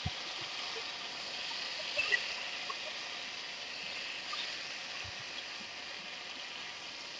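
Steady faint sizzling of hot cooking oil in a frying pan, with a few small scattered pops.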